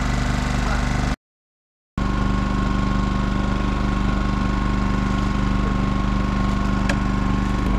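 A boat engine idling steadily, with an even pulsing beat. The sound drops out completely for under a second about a second in.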